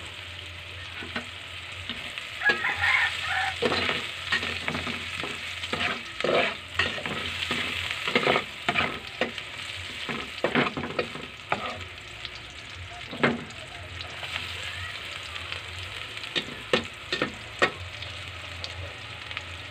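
Garlic, ginger and onion sizzling in hot oil in a pan as they are sautéed, with a steady frying hiss. A spatula stirs them, knocking and scraping against the pan again and again.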